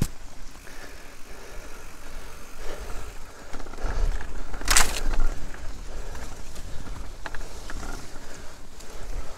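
Mountain bike rolling over a rough forest track: steady tyre noise with a low rumble, a sharp click at the start and a short loud noise about five seconds in.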